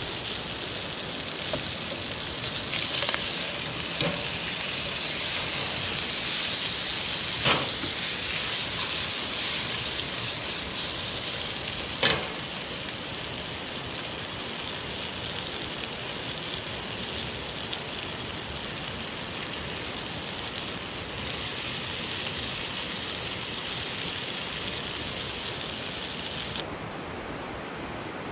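Trout frying in a hot pan over a campfire, sizzling steadily, with two sharp pops, one about a third of the way through and another about halfway. Near the end the sizzle's high hiss drops away abruptly.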